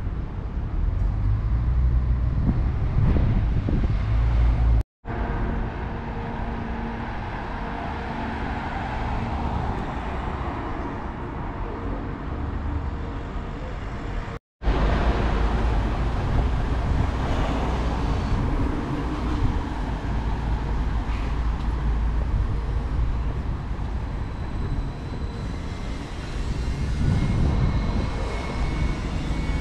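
Street ambience with road traffic passing, a steady low rumble. The sound cuts out completely for a moment twice.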